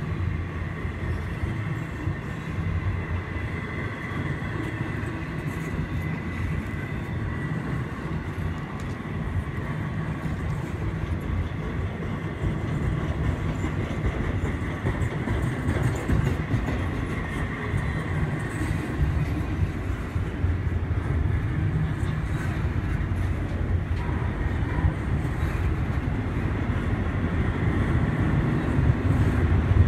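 Double-stack intermodal freight train rolling past, its steel wheels running steadily over the rails. It grows louder over the second half as the cars loaded with containers come by.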